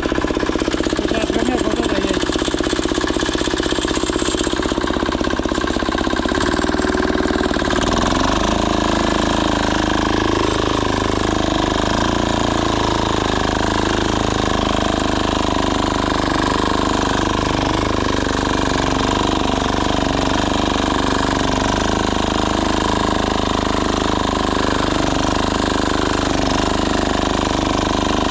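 Single-cylinder diesel walk-behind tractor engine running steadily under load while its rotary tiller tines work the soil; the engine note shifts about eight seconds in.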